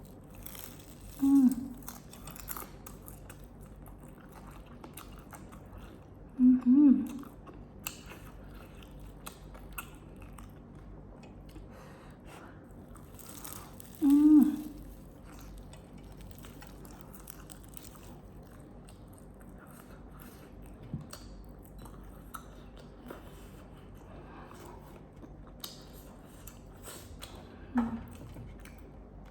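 Close-up eating sounds: a person chewing and biting food with small wet clicks, mostly on spicy noodles. Four short, louder sounds stand out, about a second in, around six and a half seconds, around fourteen seconds and near the end.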